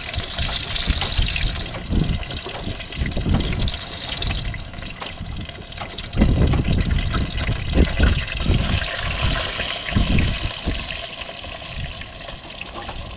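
Fish frying in hot oil in a wok over a wood fire: a steady sizzle, stronger in the first second or two and again around four seconds in, with irregular low rumbles underneath.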